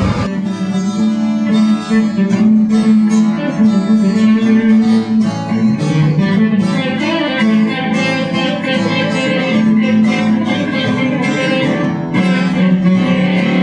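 Music played on a plucked string instrument, with quick picked notes over a sustained low tone.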